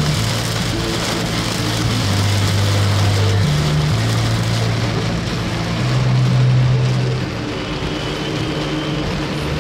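Heavy rain pelting the car's windscreen and body together with tyre and road noise on the flooded road, heard from inside the cabin. Under it runs a low hum that shifts to a new pitch every second or two.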